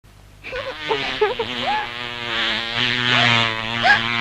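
Anime soundtrack: a few short rising vocal sounds over a steady held tone, with no sneeze burst.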